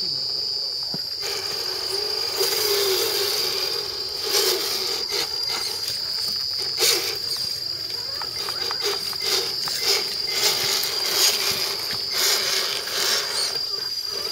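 Steady high-pitched chirring of forest insects, with scattered crackles and knocks from RC scale crawlers climbing over dry leaves and roots.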